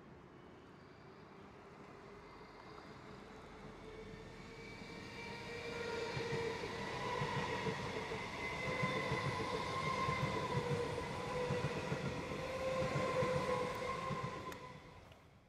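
Electric suburban train approaching and passing, growing louder over the first six seconds. Its rumble carries a steady whine of held tones. The sound falls away sharply just before the end.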